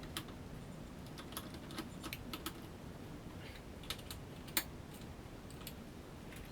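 Irregular light clicks and taps of hand tools and metal parts being handled during brake and hub reassembly, over a low steady hum.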